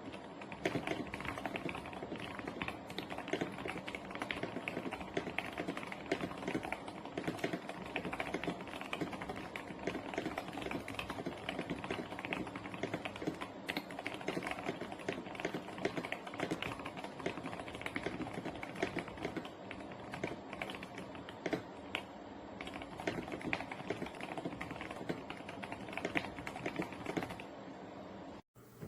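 Continuous fast typing on a Keychron K2 HE hall-effect mechanical keyboard, many key clicks a second, stopping abruptly near the end.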